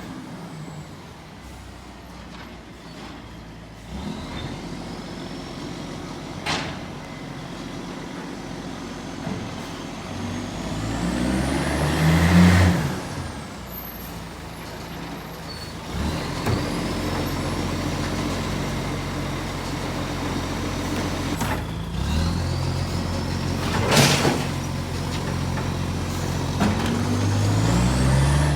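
Garbage truck's diesel engine running with an exhaust leak, revving up twice, with a couple of sharp knocks in between.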